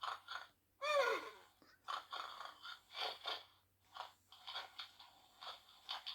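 Electronic snoring from a plush sleeping-horse toy's small speaker: a run of short breathy wheezes and snorts, about two a second, with a louder snort falling in pitch about a second in.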